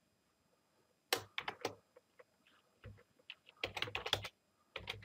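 Typing on a computer keyboard: quick bursts of keystrokes with short pauses between them, after about a second of quiet at the start.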